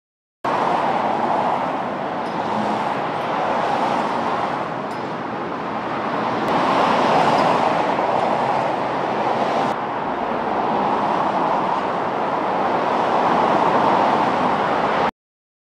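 Steady rush of road traffic passing, swelling and fading as vehicles go by, with a small sudden drop about ten seconds in.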